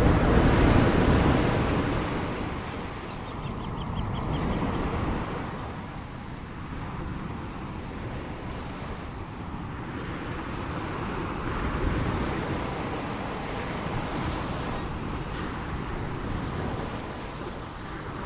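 Ocean waves breaking and washing in. A loud surge at the start eases off, followed by smaller swells.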